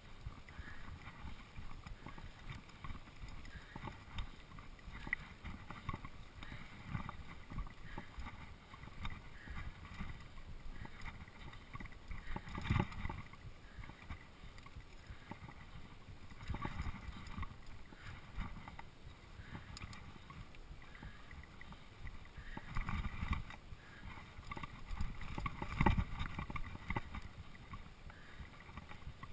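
Mountain bike rolling fast down a dirt singletrack, its tyres on the dirt and its frame and parts rattling over the bumps. Several louder jolts come about 13 and 17 seconds in and again near the end, the biggest about 26 seconds in.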